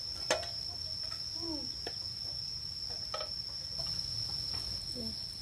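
Steady high-pitched cricket trill throughout. A sharp click about a third of a second in as the aluminium pot's lid comes off, and a couple of lighter knocks as the lid is handled and set down.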